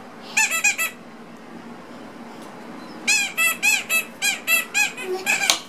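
Rubber squeaky toy giraffe squeezed over and over: a quick run of four squeaks, then after a pause about ten squeaks in a steady rhythm, each one rising and falling in pitch.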